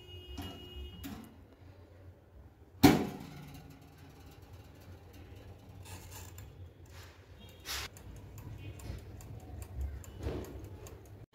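NOKA countertop electric oven: its door shut with a loud clunk about three seconds in, then the clicking of its mechanical timer dial being turned and ticking as it starts the bake.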